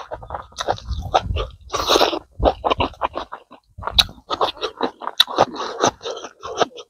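Close-miked chewing: a mouthful of rice and meat crunched and chewed, with many irregular wet smacks and clicks of the lips and teeth, and fingers scraping rice together on a banana leaf.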